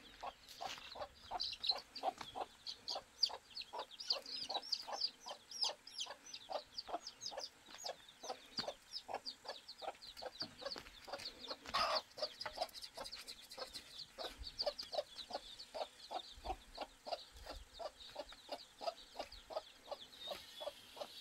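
Chickens clucking in short low calls, several a second, with rapid high-pitched peeping above them.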